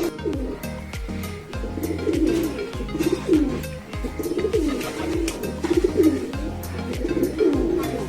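Pigeons cooing repeatedly, over background music with a steady beat.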